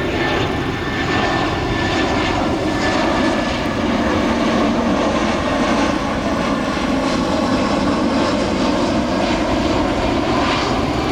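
Jet airliner's engines, a loud steady rush of engine noise, with a thin high whine over it that fades a few seconds in.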